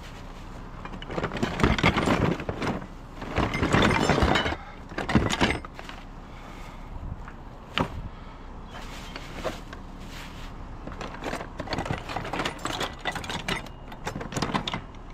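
Scrap car parts, metal and hard plastic, clattering and knocking as they are handled and dropped, in loud bursts over the first five or so seconds, then lighter rattling and the odd sharp knock.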